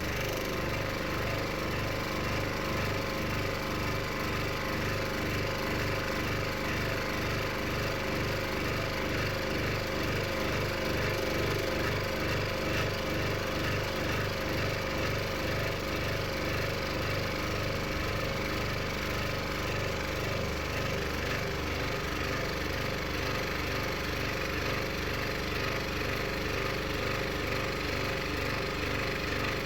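Scroll saw with a Pegas No. 5 spiral blade cutting steadily through 12mm plywood, the blade strokes making a fast, even rhythm.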